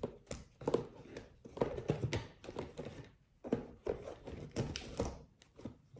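Tools being handled by hand: a string of light, irregular taps, clicks and rustles, with a short pause about three seconds in.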